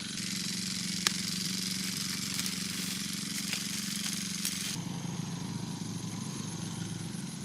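A small engine running steadily with a fast pulsing drone, with a sharp click about a second in and an abrupt change in the background about two-thirds of the way through.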